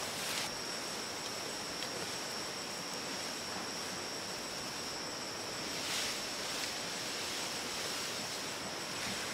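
Outdoor rural ambience: a steady hiss with a continuous high-pitched insect drone, and a brief soft rustle about six seconds in.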